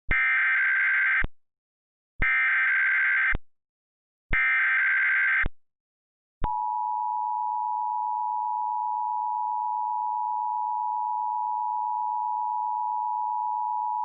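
Emergency Alert System alert opening: three identical bursts of SAME header data noise, each about a second long with a second's pause between, then after a short gap the steady two-tone EAS attention signal, held for about eight seconds.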